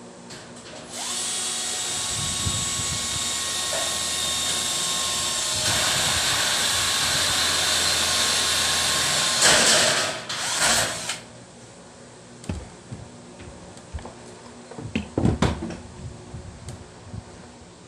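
Electric drill running overhead into a metal furring ceiling frame for about ten seconds. It gets louder about halfway through and stops about eleven seconds in. A few knocks and clunks follow.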